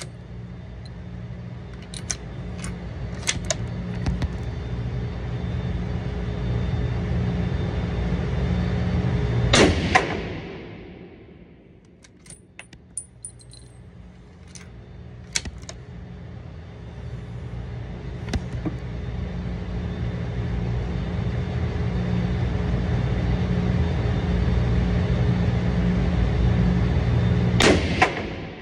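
A motor-like hum that swells for about ten seconds and ends in a sharp knock, then swells again and ends in another knock near the end, with scattered light clicks in between.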